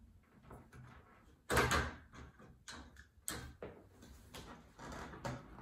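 Frame rails of a concertina blind being handled and fitted together on a wooden table: a run of short clacks, knocks and rattles, the loudest cluster about one and a half seconds in.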